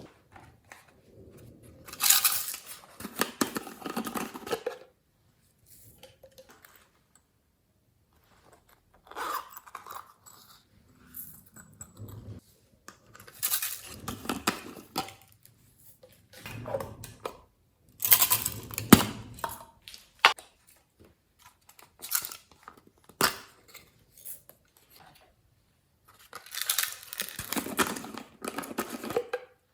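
Slime being mixed and stretched by hand, with sticky crackling, tearing and clicking noises in irregular bursts separated by short pauses.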